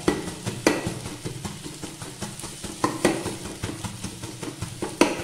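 A stainless steel tumbler pounding and scraping in a nonstick frying pan as it mashes scrambled egg into fine crumbs. The knocks are irregular, with a few sharper clacks about a second in, near three seconds and near the end.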